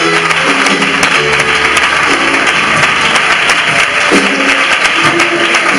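Loud congregation applause over instrumental music playing sustained notes that change pitch every second or so.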